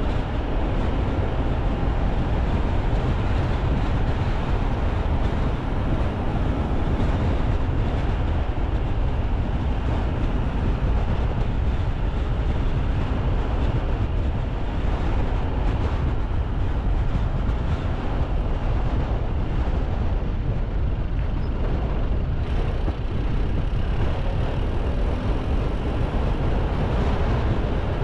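A car driving along a road: steady tyre and engine rumble, heaviest in the deep bass.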